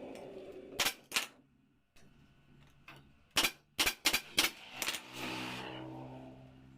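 A series of sharp clicks: two about a second in, then a quick run of about six near the middle, followed by a fading hiss with a low hum.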